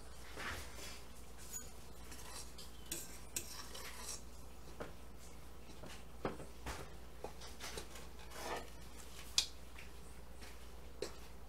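A fork stirring a crumbly flour, egg and peanut butter mixture in a mixing bowl, with irregular scrapes and light clicks of the fork against the bowl. One sharper click comes about three-quarters of the way through.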